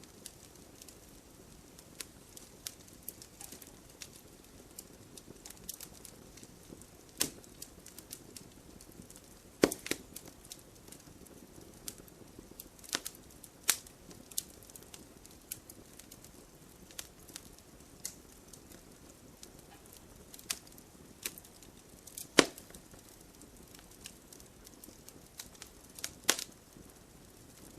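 Firewood burning: a soft steady hiss broken by scattered sharp crackles and pops, the loudest pops about ten seconds in and again about twenty-two seconds in.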